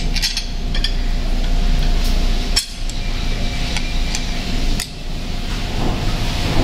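Small metal clinks and knocks of knuckle-guard mounting hardware being handled and fitted on a motorcycle handlebar, over a steady hiss of background noise.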